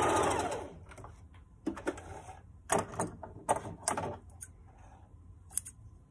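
Singer electric sewing machine stitching and stopping about half a second in, followed by scattered sharp clicks and clatter as the fabric is taken out, with scissors snipping the threads near the end.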